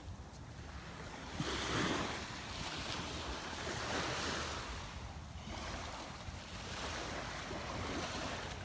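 Small waves breaking and washing up the sand, swelling and fading every few seconds, with wind rumbling on the microphone.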